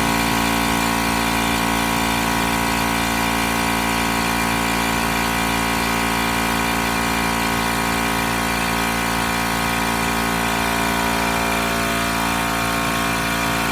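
A motor running steadily at an even speed, with no revving.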